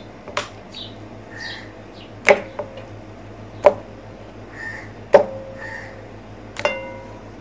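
Raw chicken drumsticks set down one at a time into a bowl, five knocks about a second and a half apart, each with a brief ringing tone from the bowl.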